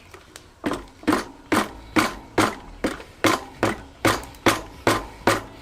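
Handlebar grip being tapped onto a motorcycle handlebar with a hammer or mallet: a steady run of about a dozen knocks, roughly two a second, starting shortly after the beginning.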